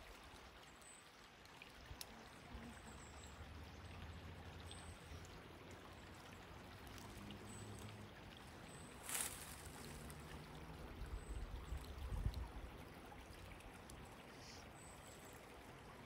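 Faint, steady trickling of a shallow woodland creek running low. A short crackle comes about nine seconds in, and a few faint high chirps sound now and then.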